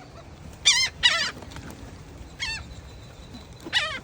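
Seagulls calling: a few short, high, wavering cries, two close together about a second in and more near the middle and the end, as the gulls squabble over bread.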